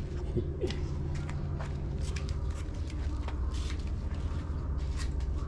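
Steady low outdoor rumble with scattered light clicks and rustles.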